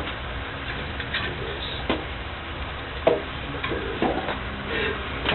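Scattered light clicks and knocks of hands handling wiring and parts inside an HVAC unit, the loudest about three seconds in, over a steady low background noise.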